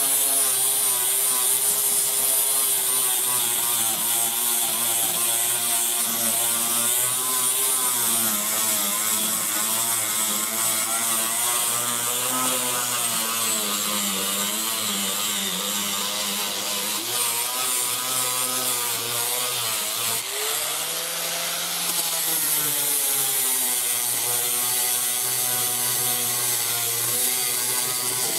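Chicago Electric angle grinder with a 60-grit flap disc running under load, grinding old body filler (Bondo) off a car's steel roof. The motor's whine wavers in pitch as the disc is pressed and eased, dipping and recovering about three-quarters of the way through.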